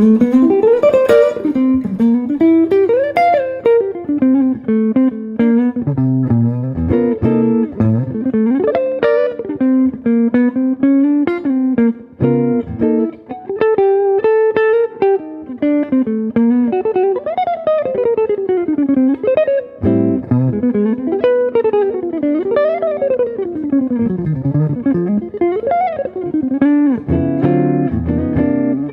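Small-body hollow archtop electric guitar with humbucker pickups, played in a jazz style. Fast single-note runs sweep up and down, broken up by chords and low bass notes.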